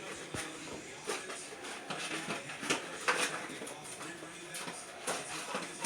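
Aluminum foil crinkling and rustling in irregular bursts as it is handled and spread over an oven rack.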